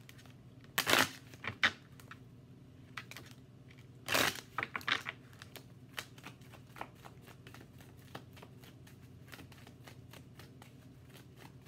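A deck of tarot cards being shuffled by hand: two louder rustling bursts about a second in and about four seconds in, then a fast run of light card clicks.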